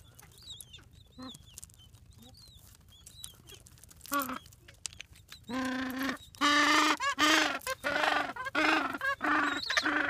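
Gentoo penguins calling: faint high chirps at first, then from about halfway through a run of loud, harsh repeated calls, several a second.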